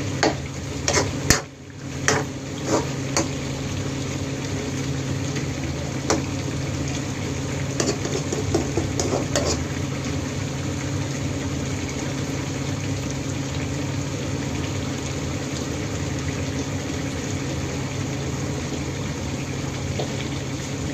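Squid adobo simmering in its sauce in a pan, a steady bubbling hiss. A few sharp clicks and knocks come in the first ten seconds.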